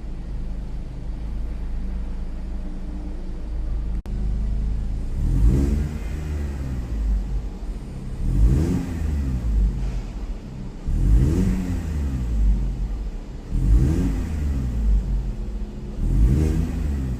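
Car engine and exhaust idling, then revved in five short throttle blips, each rising and falling in pitch, about every three seconds.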